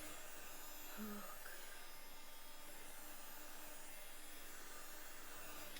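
Quiet room tone: a faint steady hiss with a low hum, and a brief faint sound about a second in.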